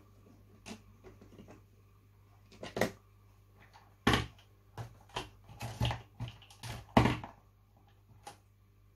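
Irregular knocks, taps and clicks of craft supplies being handled and set down on a desk, about ten in all, loudest about four and seven seconds in.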